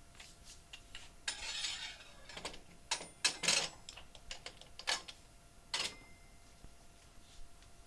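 Parts of a Taylor 794 soft serve machine's faceplate being handled and fitted: a short scrape, then several sharp clicks and clanks, the loudest a few seconds in.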